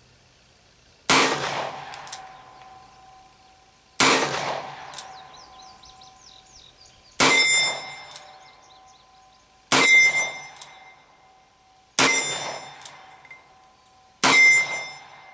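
Six shots from a Colt Official Police .38 Special revolver with a 6-inch barrel, fired one at a time about every two and a half to three seconds, emptying the cylinder. Each shot is followed by a metallic ringing that fades over a second or two.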